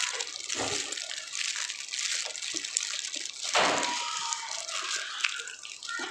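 Wet slurping and chewing of spicy instant noodles being eaten by hand, with a louder slurp about three and a half seconds in.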